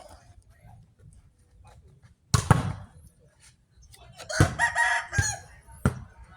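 A rooster crows once, about four seconds in, after a loud thump a couple of seconds in, with several sharp knocks near the end.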